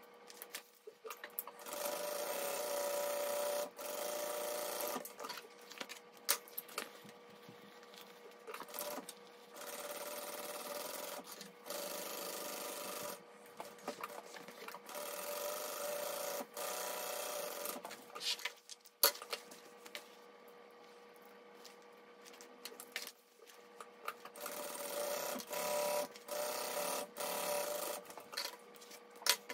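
Kingmax GC0302 industrial sewing machine stitching through vinyl in short runs of one to four seconds, stopping and starting several times as the work is turned and repositioned. Clicks and handling noises fall between the runs, over a faint steady hum.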